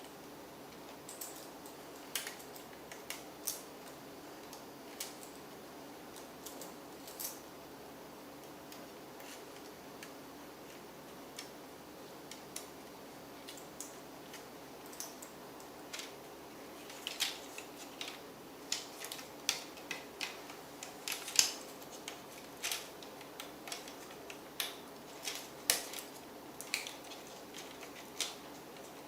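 Scattered small clicks and taps of tools and laptop parts being handled during disassembly. They come sparsely at first and more often in the second half.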